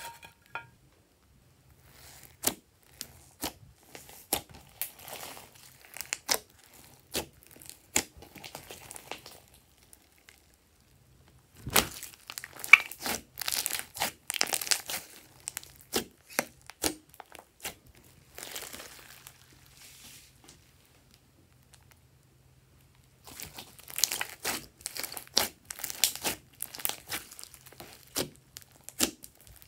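Hands squishing, pressing and pulling apart glossy slime mixed with foam beads: sticky clicks and pops with bursts of crackling, broken by a few short pauses.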